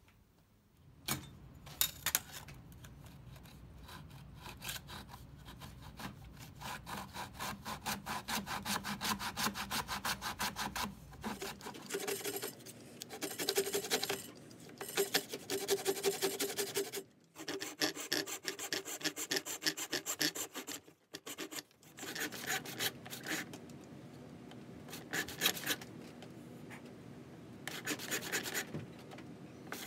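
Hand backsaw cutting through a walnut saw-handle blank held in a vise, with quick, rhythmic back-and-forth strokes. The sawing runs in several stretches with short breaks.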